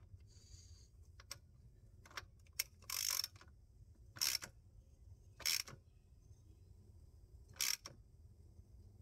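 Socket ratchet clicking in short, irregular bursts as a Subaru Forester's PCV valve is tightened down after being started by hand.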